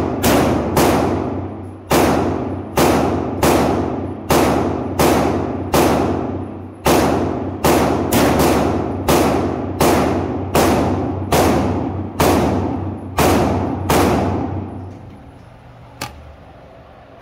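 A string of about twenty pistol gunshots at an uneven pace of roughly one to two a second, each with a long echo off the walls of an indoor range. The shooting stops about 15 s in, and a single faint click follows a second later.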